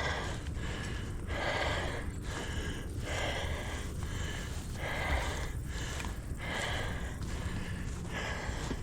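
A hiker breathing hard and fast through the mouth, one loud breath about every second, winded after a steep uphill climb.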